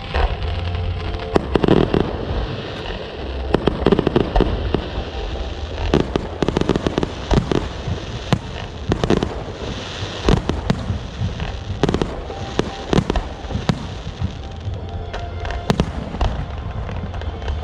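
Aerial fireworks going off in an irregular string of sharp bangs and crackles, with music underneath.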